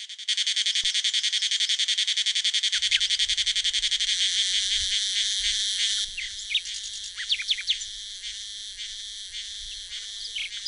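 Dense insect chorus, a fast, even pulsing buzz that drops back about six seconds in, with a few short bird chirps after that.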